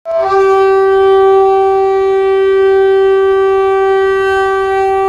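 Train horn sounding one long, steady, single-pitch blast.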